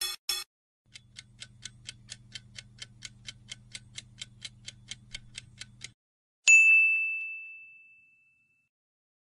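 Quiz-game sound effects: two quick pops as answer options appear, then a countdown timer ticking about four times a second over a low hum for about five seconds. After that a single bright ding rings out, marking the answer reveal.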